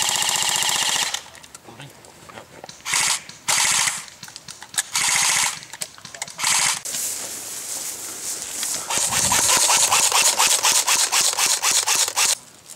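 Airsoft electric guns (AEGs) firing on full auto. A long, whining burst stops about a second in. It is followed by several short bursts, then a longer string of rapid shots near the end.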